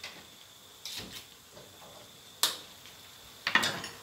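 Metal spatula knocking and scraping against a wok during stir-frying: a few sharp clinks, the loudest about two and a half seconds in, then a short cluster of scraping knocks near the end.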